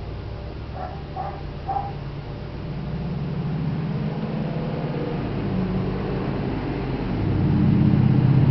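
A motor vehicle's engine running with a steady low hum that grows louder near the end. About a second in there are three short high-pitched yelps or chirps.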